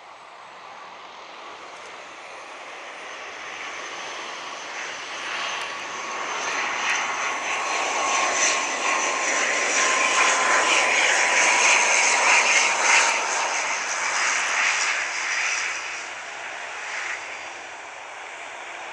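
ATR 72 twin-turboprop airliner on final approach, its engine and propeller drone growing steadily louder as it nears. The sound peaks about halfway through with a high whine that slowly falls in pitch as it passes, then eases off as it touches down.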